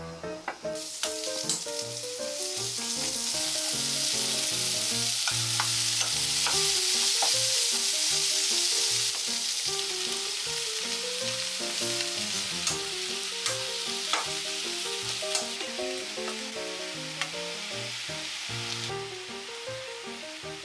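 Sliced onions, carrots and shiitake mushrooms sizzling in hot oil as they are stir-fried in a nonstick pan, with now and then a click of a wooden spatula. The sizzle swells over the first few seconds, is loudest until about nine seconds in, then eases, and drops again near the end.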